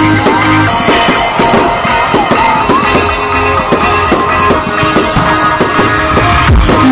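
Rock music with guitar and drums.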